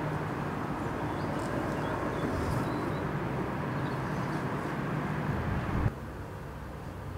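Steady low rumble of outdoor background noise. About six seconds in, a brief louder thump comes, and then the sound drops to a quieter room tone.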